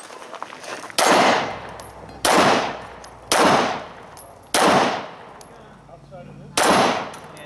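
Semi-automatic pistol fired five times, about a second apart with a longer pause before the fifth shot, each shot trailing a long fading echo.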